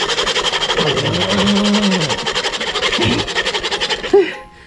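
Cheap hacksaw sawing hard metal with rapid back-and-forth strokes, a steady rasping scrape that stops about four seconds in; the blade is making no mark on the hardened steel of a BL-10 motorcycle lock. A strained grunt about a second in and a short laugh near the end.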